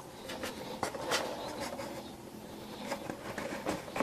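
Light clicks and rubbing of small parts being handled and slid into place on an expanded-polystyrene beehive bottom board, scattered and irregular.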